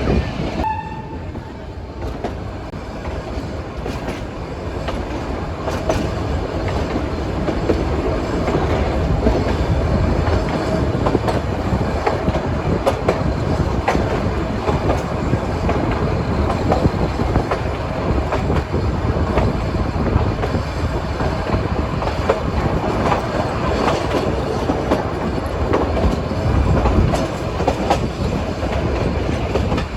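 Nilgiri Mountain Railway toy train running, its wheels clattering steadily over the rail joints, heard from aboard the carriage.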